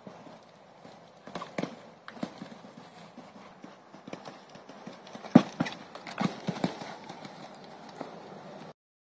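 A horse's hooves beating on sand arena footing at a canter: an uneven run of dull thuds, loudest about five and a half seconds in, cutting off abruptly near the end.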